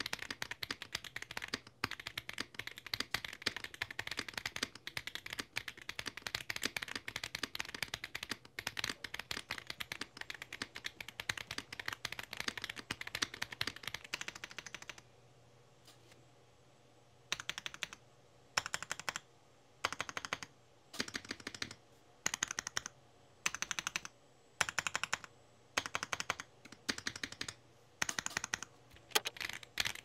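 Feker K75 mechanical keyboard with stock Feker Corgi linear switches and double-shot PBT keycaps being typed on: fast continuous keystrokes for about fifteen seconds, a brief pause, then short bursts of keystrokes with small gaps between them.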